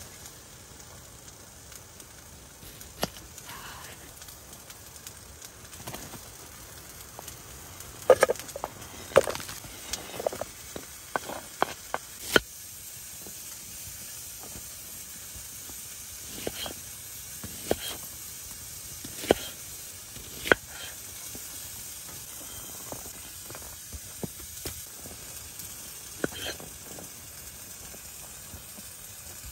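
A steady sizzling hiss with scattered sharp clicks and knocks, busiest about a third of the way in, typical of cooking on a wood-burning tent stove.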